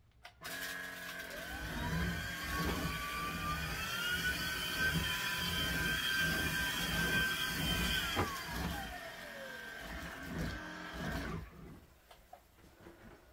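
Cordless stick vacuum running on a wood floor: its motor whine climbs in pitch over the first few seconds and holds. About eight seconds in the pitch slides down, and the sound cuts out near the end. The vacuum is failing to keep running although charged, and the owner decides she needs a new one.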